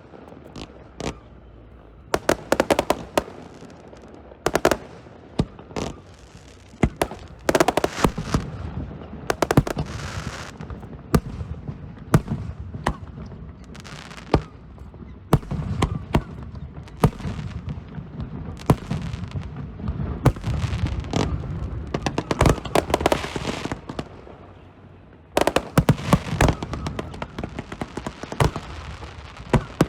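Fireworks show: a long run of sharp bangs from bursting shells, some in quick clusters, over a rumble and crackle. After a brief lull near the end, a dense flurry of bangs.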